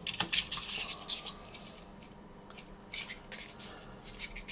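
Rustling and small, irregular clicks of a card of IC chips and sockets being handled and picked through.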